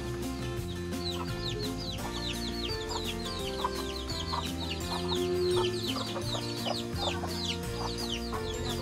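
Chickens calling with quick, high, falling peeps, several a second from about a second in, over background music of held chords.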